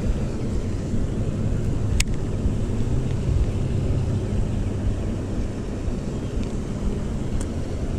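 Steady low engine-like drone, with a single sharp click about two seconds in as the baitcasting reel is engaged after the cast, and a fainter click near the end.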